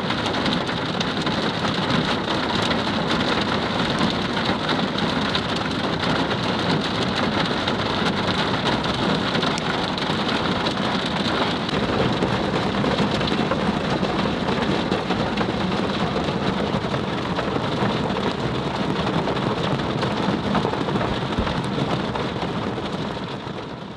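Heavy rain pouring steadily, a dense unbroken downpour, fading out at the very end.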